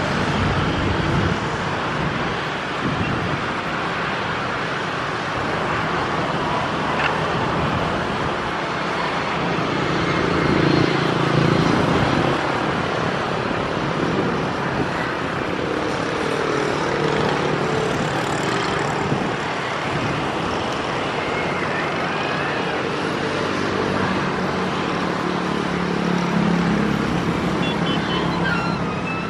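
Kobelco tracked excavator's diesel engine running while it digs, its note swelling several times as the bucket works, over a steady mechanical noise.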